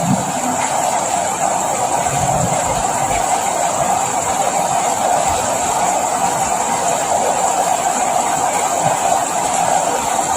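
Steady rain falling in an even, unbroken wash of sound.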